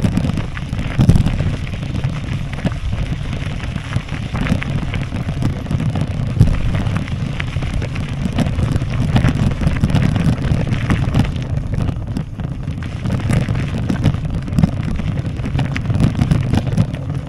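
Handlebar-mounted camera on a bicycle jolting over a bumpy dirt track: a steady low rumble of tyres on rough ground with many small rattles and knocks, and wind buffeting the microphone.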